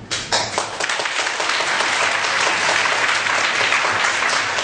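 Audience applauding: the clapping starts suddenly and carries on steadily.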